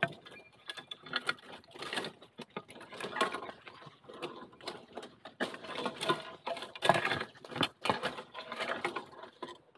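Irregular crackling, snapping and rustling of dry leaf litter, twigs and bamboo being stepped on or pushed through, a quick run of sharp clicks with rustling between them.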